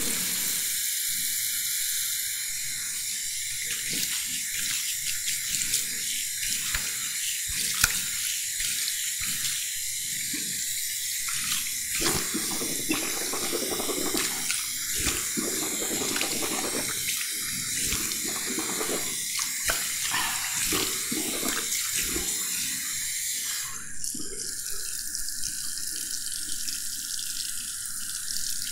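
Tap running steadily into a bathroom wash basin, with irregular splashes and knocks as the stream is broken up through most of it; only the steady flow remains for the last few seconds.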